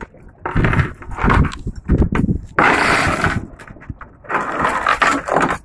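An anchor chain being hauled in by hand over a boat's bow, rattling and clanking against the hull in several rough bursts as each length is pulled up.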